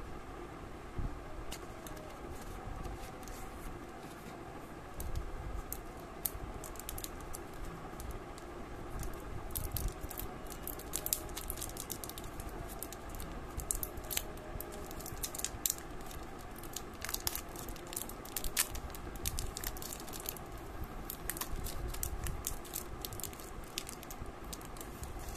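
Thin plastic wrapper crinkling and crackling as a kneadable eraser is unwrapped by hand. The crackles are scattered at first and come thick and fast from about a third of the way in. A steady low hum runs underneath.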